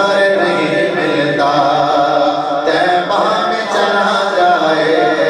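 A man reciting a naat, singing unaccompanied into a microphone and drawing out long held notes that shift pitch every second or so.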